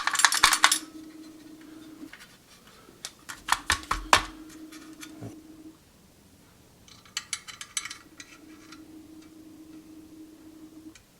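Small sheet-metal parts of a toy cork pop gun clinking and rattling against each other as its mechanism is reassembled by hand. There are three short bursts of clicks, at the start, around the middle and about two-thirds through.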